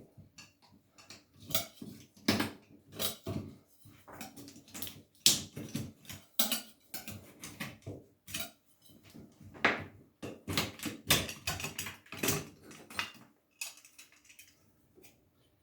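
Paint scrapers being worked under a shower valve front plate to cut through the silicone sealant holding it: irregular metal clicks, knocks and scrapes.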